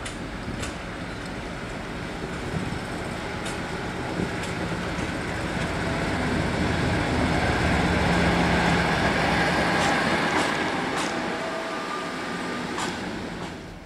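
Colas Rail Freight Class 56 diesel-electric locomotive 56051, with its Ruston-Paxman 16-cylinder engine, approaching and passing beneath. The engine sound grows to its loudest about eight seconds in, then fades as the locomotive goes by, with a few sharp clicks along the way.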